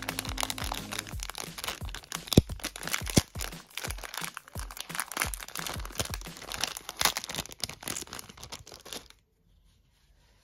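Thin clear plastic packaging bag crinkling and crackling in the hands as it is opened and a powder puff is pulled out of it. The crinkling is quick and irregular and stops suddenly about nine seconds in. Background music ends about a second in.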